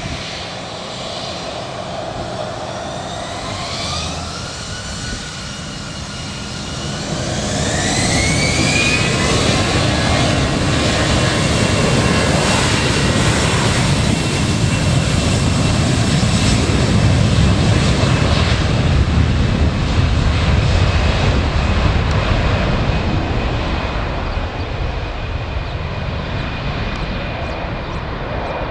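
Airbus A320 twin jet engines spooling up to takeoff thrust: a rising whine in two steps, then a loud roar that swells, peaks midway and slowly fades toward the end.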